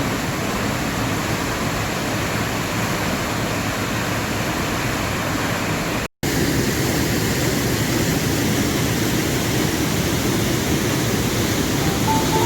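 Steady rush of water from the Maligne River and its small waterfalls in the canyon. It is broken by a split-second gap about halfway through, after which the rush is slightly louder and deeper.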